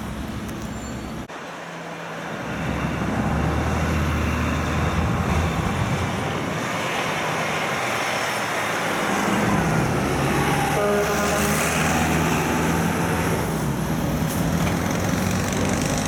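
Heavy truck's diesel engine running under load as it pulls out and passes close, over steady road traffic noise. The sound cuts abruptly a little over a second in, then builds to a steady rumble.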